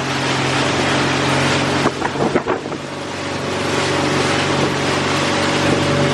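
An engine running steadily under heavy wind noise on the microphone, with a few short knocks about two seconds in.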